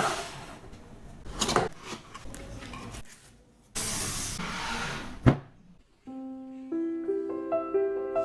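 Rustling and handling noises, with a denser burst of noise around four seconds in and a sharp knock a little past five seconds. Piano music then starts about six seconds in.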